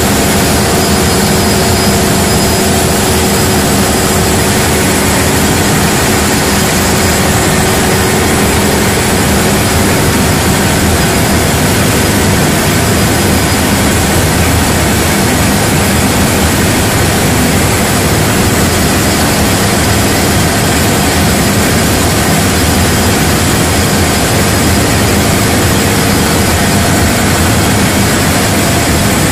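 Large diesel generator set running at constant speed: a loud, unbroken engine drone with a steady low hum.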